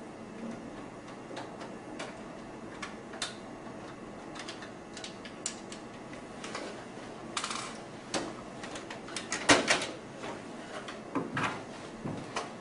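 Scattered sharp clicks and light clatter of a screwdriver and screws being worked out of the plastic back casing of an HP LaserJet 1320 laser printer. The clicks come thicker and louder about three-quarters of the way through.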